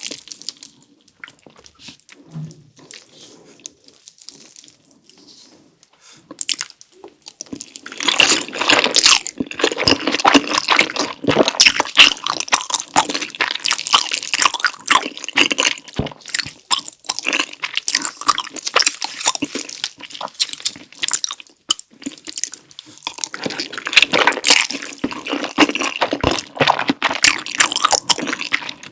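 Close-miked eating sounds: quiet, faint chewing for the first several seconds, then from about eight seconds in a dense run of wet, sticky smacking and chewing of saucy noodles and sausage.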